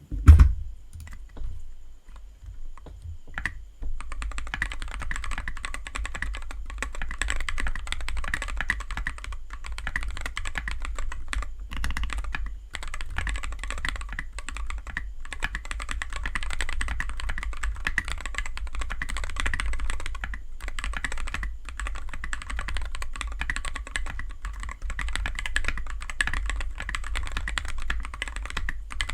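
Typing on a Tofu 60 aluminium-cased mechanical keyboard with stock, unlubed Akko CS Matcha Green switches and KAT keycaps. A few separate keystrokes come first, then steady, fast, continuous typing from about four seconds in.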